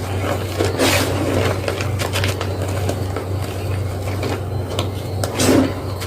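Block of gym chalk being crunched: irregular soft crunches and crackles, with bigger crunches about a second in and near the end, over a steady low hum.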